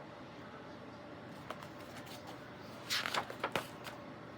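Paper page of a picture book being turned: a brief crisp rustle with a few sharp clicks about three seconds in, over faint room hiss.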